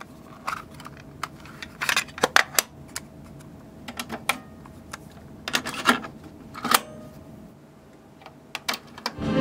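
Plastic clicks and clacks of a TDK SA90 cassette being taken from its case and loaded into a TEAC W-1200 (TASCAM 202mkVII) cassette deck, ending with the clunk of the deck's play key and the transport engaging near the end.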